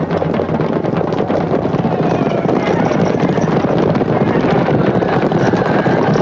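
Film soundtrack of a cavalry charge: many horses galloping, a dense rumble of hoofbeats that grows louder.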